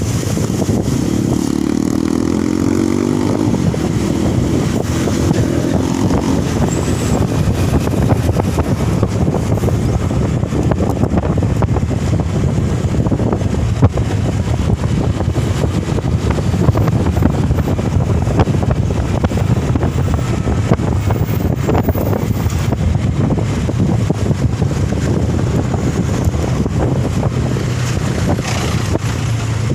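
A motor vehicle running along a road, with a steady, loud mix of engine and road noise.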